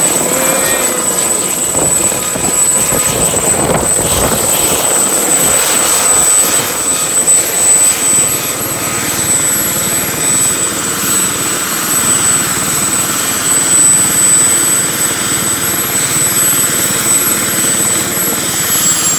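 Westland Gazelle helicopter running with its main rotor turning: a steady high turbine whistle over continuous rotor and engine noise.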